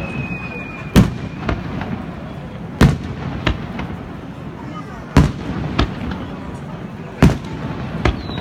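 Fireworks display: aerial shells bursting in sharp bangs, four loud reports and several smaller ones spaced a second or two apart. A faint falling whistle can be heard in the first second.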